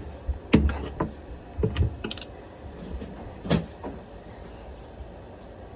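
Scattered metallic clicks and knocks of a chainsaw chain and saw being handled, about five separate clacks, the loudest about three and a half seconds in.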